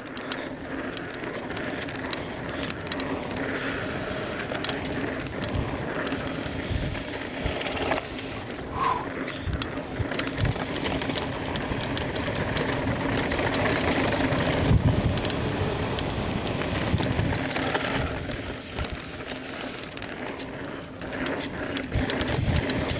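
Mountain bike descending a rough dirt trail at race speed: tyres rolling over dirt and rock, the bike rattling, and frequent knocks from impacts. Short high squeals come in now and then, around a third of the way through and again past the middle.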